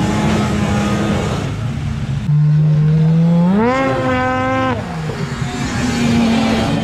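Snowmobile engine revving hard as the sled skims across open water: a loud pass whose pitch climbs a little after three seconds in, holds, then drops away near five seconds. Another sled's engine runs underneath.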